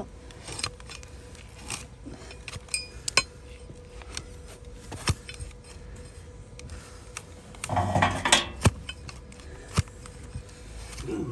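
Hoof-trimming tools clicking, scraping and clinking in scattered strokes, with a couple of brief metallic rings about three seconds in and a louder, denser scrape about eight seconds in.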